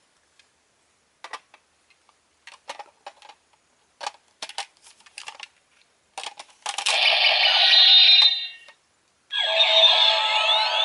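Plastic clicks and rattles as Power Rangers Megaforce toy pieces are fitted together, then two electronic sound effects from the toys' small speaker, about two seconds each; the second, with sweeping tones, starts just before the end. The owner finds it is not the special combined battle sound the pairing is supposed to unlock.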